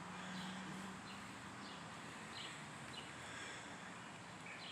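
Faint, scattered bird chirps, about five short high notes, over quiet outdoor background hiss, with a low steady hum that fades out about a second in.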